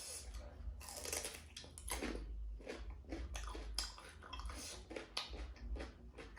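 A person chewing food close to the microphone: an irregular run of mouth clicks and bites, several a second.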